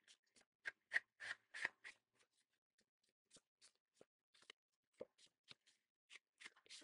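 Faint, quick scraping strokes of an ink pad being swiped along the edges of patterned paper to ink over its white core, irregular and sparser in the middle.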